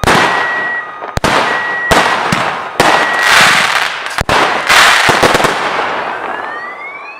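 Multi-calibre consumer firework cake firing its last shots, sharp reports about a second apart, each followed by crackling and some by a short whistle. The firing dies away over the last couple of seconds, and a rising whine begins near the end.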